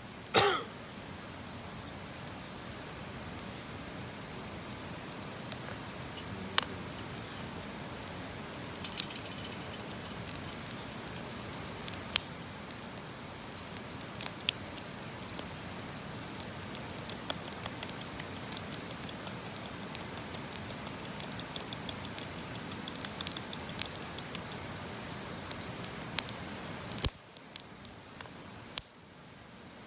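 Wood campfire crackling, with scattered sharp pops and snaps over a steady hiss. The hiss cuts off suddenly near the end.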